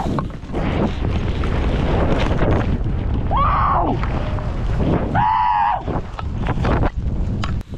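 Heavy wind rushing and rumbling over a body-worn action camera's microphone while a skier drops off a cliff and skis fast downhill. Two short yells break through, about three and a half and five and a half seconds in.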